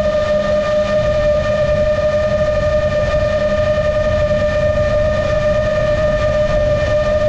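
GepRC MOZ-7 seven-inch long-range FPV drone's motors and propellers whining at a steady pitch while it cruises at constant throttle, with a low rumble of wind on the onboard microphone.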